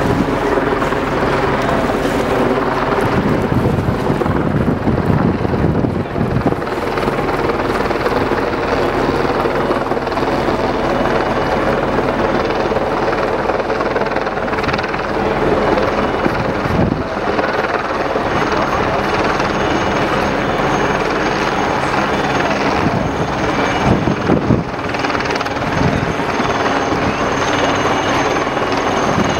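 Steady engine drone: several motors running together, with a cluster of pitched tones over a continuous rumble that barely changes in loudness.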